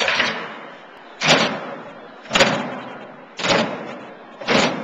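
A group of people beating square plastic buckets with drumsticks in unison, one loud hit about every second, five in all, each ringing on briefly in a large room.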